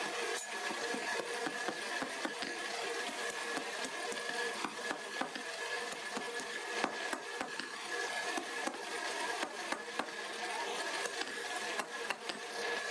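Many quick, light hand-hammer taps on a steel knife blade resting on a small steel anvil block, irregular in spacing. Under them a machine hum holds two steady tones.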